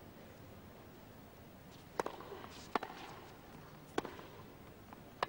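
Tennis ball struck by rackets in a rally on a hard court: four sharp pocks, the first about two seconds in, then hits about a second apart.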